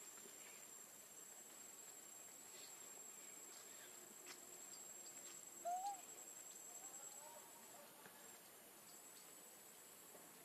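Quiet outdoor ambience: a thin, steady, high-pitched insect trill, which drops out briefly past the middle and comes back. Just after halfway, one short chirp rises and falls; it is the loudest sound.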